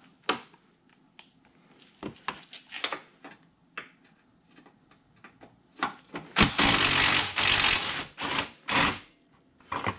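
Socket ratchet clicking as it loosens a 13 mm bolt through extensions: scattered clicks and knocks of tool handling, then a loud run of rapid ratchet clicks about six and a half seconds in, followed by two short runs.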